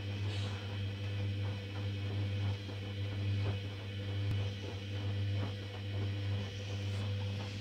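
Hoover Dynamic washing machine at the start of its 60 °C coloureds main wash, giving a steady low hum with faint irregular ticks and knocks over it.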